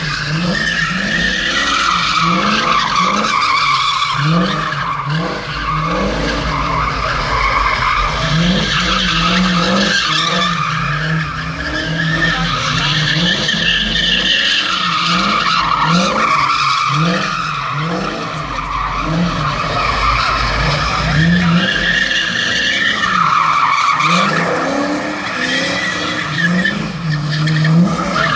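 An '86 coupe spinning donuts: its engine revs in repeated rising surges while the tyres skid and screech on the pavement, the screech swelling and fading as the car circles.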